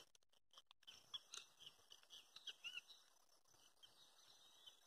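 Near silence, with a few faint, short bird chirps scattered through it.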